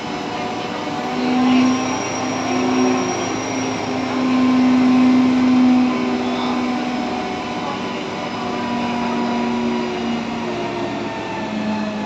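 Truck-mounted crane's engine and hydraulics running as it lifts a steel gangway: a steady mechanical drone with a low hum that swells and fades, loudest about a second and a half in and again around five seconds.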